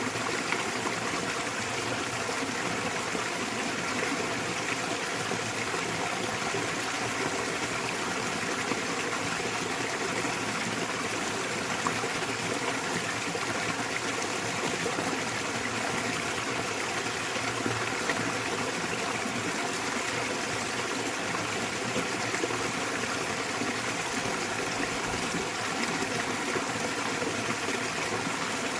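Small waterfall splashing into a mountain stream, a steady, even rush of water with no pauses.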